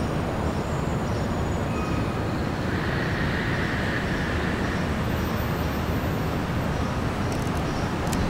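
NYC subway train approaching on elevated steel track: a steady rumble of wheels on rail, with a faint high squeal about three seconds in.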